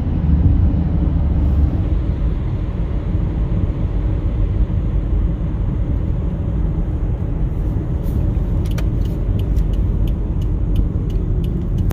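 Steady low rumble of a car driving, heard from inside the cabin. In the last few seconds a light, regular ticking comes in, about two ticks a second.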